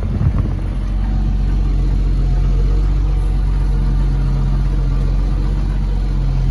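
Tractor engine running steadily, a constant low drone heard from inside the cab.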